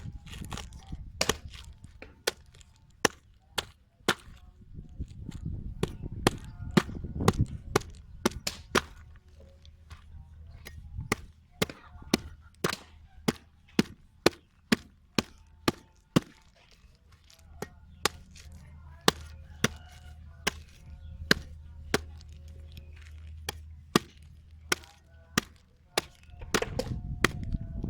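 Repeated chopping with a blade: sharp, separate strikes at an uneven pace of about one to two a second, with short pauses between runs.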